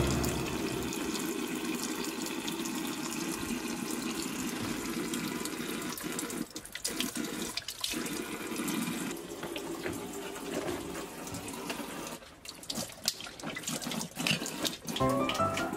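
A tap running a thin stream of water into a ceramic sink, a steady splashing. From about six seconds in, irregular wet clicks and splashes break in as a golden retriever puppy laps from the stream.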